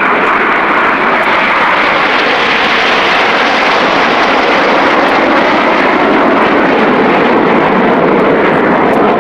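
Jet noise from a formation of BAE Hawk T1 jets flying past overhead: a loud, steady rushing sound that grows a little brighter about three seconds in.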